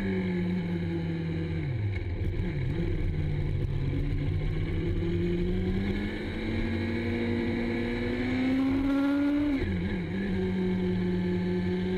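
Motorcycle engine running under way, heard from on the bike. Its pitch falls about two seconds in, climbs slowly as the bike speeds up, then drops sharply and recovers near ten seconds in before holding steady.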